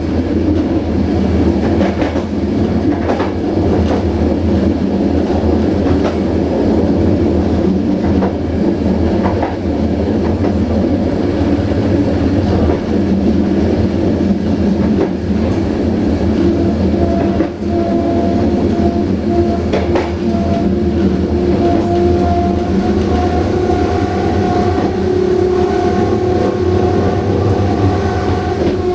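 A train running on the rails: a steady heavy rumble with wheels clacking over the rail joints. About two-thirds of the way in, a steady whine joins and rises slightly in pitch.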